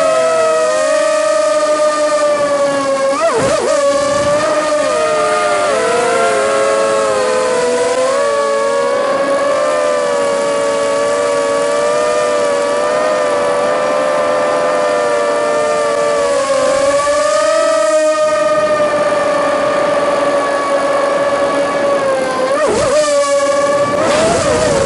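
Electric motors and propellers of an FPV multicopter whining at several close pitches that rise and fall together with the throttle, heard from the onboard camera. The pitch dips and swings briefly about three seconds in and again near the end.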